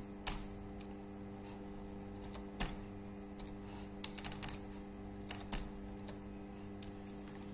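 Computer keyboard keys tapped in a few short, scattered clusters, over a steady low hum.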